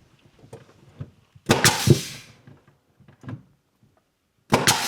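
Nails being driven into wooden trim: two loud bursts of sharp knocks about three seconds apart, each trailing off in a hiss.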